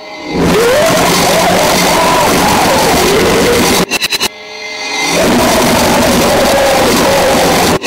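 Noisecore: a dense wall of distorted noise with a wavering, gliding pitched line riding over it. It cuts out in a few quick stutters about four seconds in, swells back to full level over about a second, and breaks up again right at the end.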